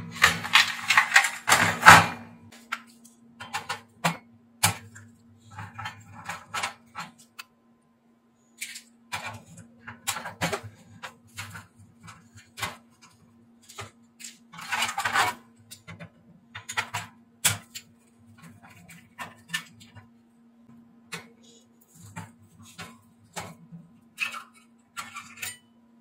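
Sheet-metal parts of a disassembled oil-fan heater being handled and worked with a screwdriver: irregular metallic clatter, knocks and clicks, loudest in the first two seconds and again about halfway through, over a faint steady hum.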